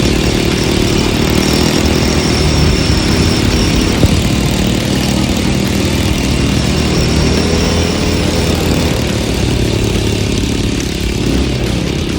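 ATV engine running steadily as the quad is ridden, with a continuous low drone and small shifts in engine speed.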